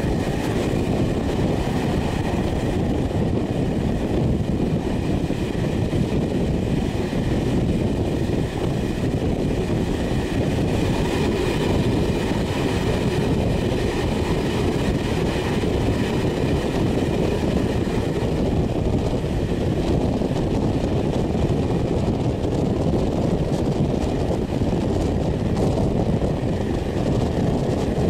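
Passenger train running on the track, heard from an open carriage window: a steady rumble of wheels on the rails, with a faint steady high whine above it.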